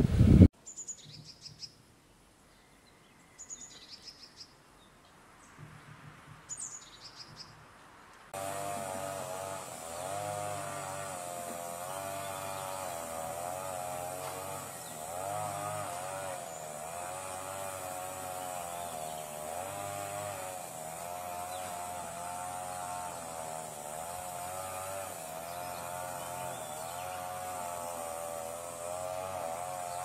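A few short, high bird chirps over quiet. About eight seconds in, a steady droning buzz starts and runs on, wavering up and down in pitch.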